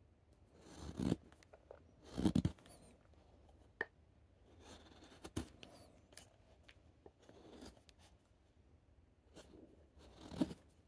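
Carving knife slicing long shavings off a wooden goblet stem: several short scraping cuts, the loudest about two seconds in and near the end.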